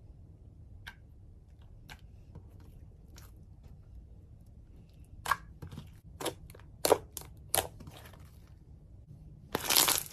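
Slime being squeezed and worked by hand, giving scattered sticky crackles and clicks that grow more frequent about halfway through, then a dense crunchy crackling near the end.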